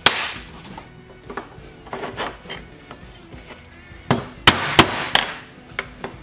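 A screwdriver tapping an oil seal down into its bore in a Wisconsin engine's bearing plate: sharp metal taps that ring briefly. There is one loud tap at the start, a few light ones, then a quick run of four about four seconds in.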